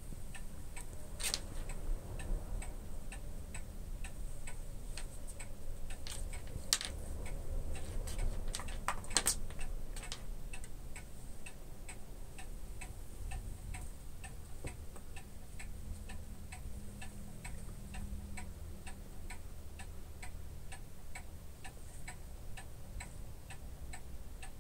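Clock ticking steadily, about two ticks a second, with a few louder clicks in the first ten seconds.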